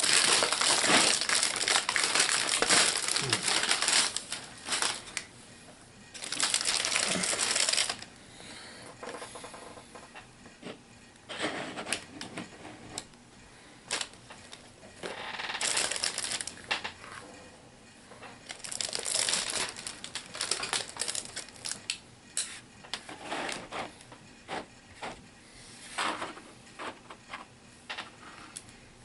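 HeroClix booster-pack wrapping crinkling and crackling in several long stretches as it is torn open and handled, with many sharp clicks and taps in between as the contents are handled.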